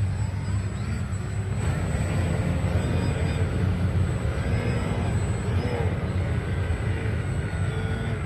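Radio-controlled model airplane in flight, its motor heard as faint wavering tones over a steady low rumble.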